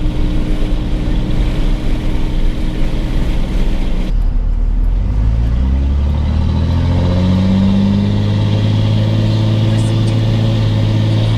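Vehicle engine running steadily, then about four seconds in the engine accelerates, its pitch rising over a few seconds before settling into a steady low cruising drone.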